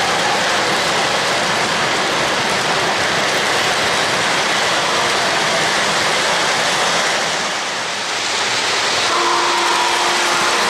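O-gauge three-rail model train cars rolling past on the track, a steady noise of wheels and motors. About nine seconds in, a model locomotive's sound system sounds a steady whistle of several tones together.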